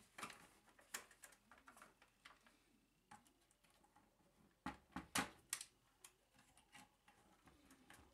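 Mostly quiet, with faint scattered clicks and light knocks from the plastic case of a Tascam 414 Mk2 cassette portastudio as its top panel is handled and lifted off the chassis. A short cluster of louder knocks comes about five seconds in.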